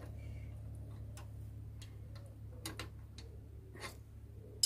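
Scattered light metallic clicks and taps of a combination spanner being fitted against a bicycle pedal's spindle and crank arm, with a sharper click near the end.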